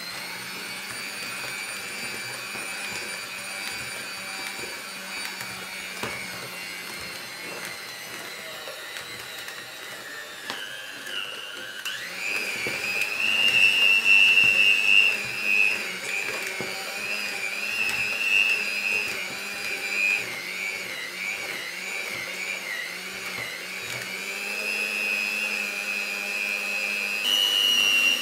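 Electric hand mixer fitted with dough hooks, running as it beats flour and water into bread dough. Its steady whine dips about ten seconds in, then goes on higher and louder, its pitch wavering as the hooks work through the thickening dough.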